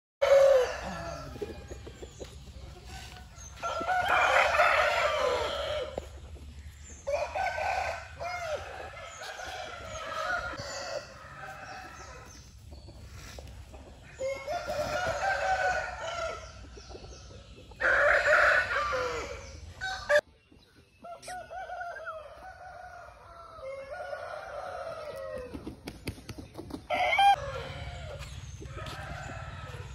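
Game roosters crowing again and again, a long crow every few seconds.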